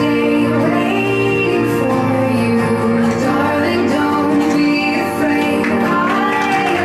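Background music with sustained chords and a sung melody.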